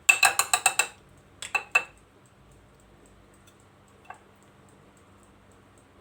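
A metal spoon clinking against a glass jar while grated turnip and honey are stirred: a fast run of ringing clinks in the first second, a few more just after, then one last tap about four seconds in.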